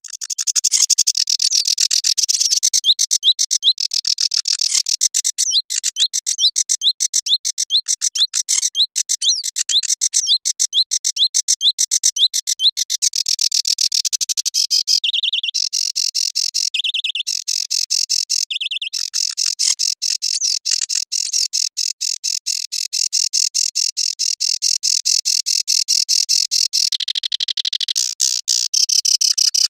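Sedge warbler singing: a long, fast, unbroken chatter of high, scratchy notes mixed with slurred whistles, broken up by several short buzzy trills in the second half.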